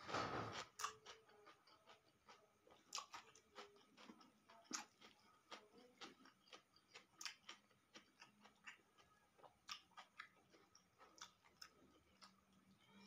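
A person chewing a mouthful of food, raw cucumber among it, close to the microphone: irregular soft crunches and wet mouth clicks, with a louder crunch right at the start.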